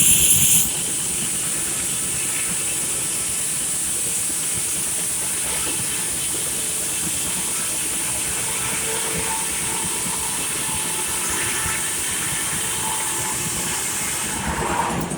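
A steady, even hiss that holds at one level, strongest in the high range. A short louder clatter comes at the very start, and the sound swells again at the end.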